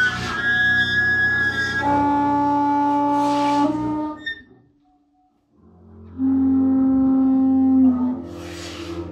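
Free improvised music: bowed double bass with a prepared bass trombone, holding long, steady notes in two phrases. The notes break off for about a second of near silence around five seconds in.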